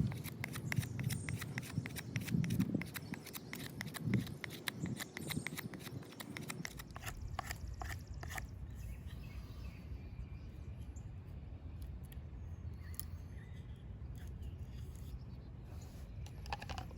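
Mora Companion stainless steel knife carving coarse shavings off a piece of dry white oak, a rapid run of scraping cuts. After about six seconds it gets quieter, with only occasional clicks.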